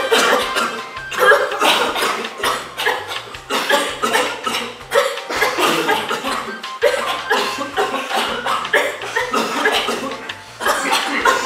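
Several people coughing repeatedly and irregularly over background music.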